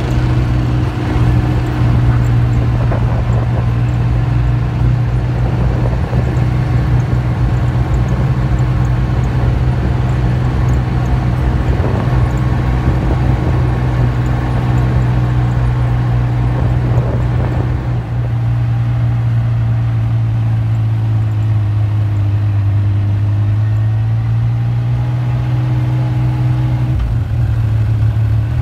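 Off-road vehicle engine running steadily at low cruising speed, a constant low drone. Its pitch sags briefly about three quarters of the way through, then climbs back.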